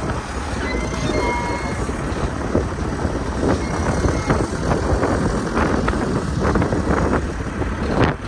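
Heavy wind buffeting the microphone as a low, continuous rumble, over a vehicle running, with scattered short clicks and knocks.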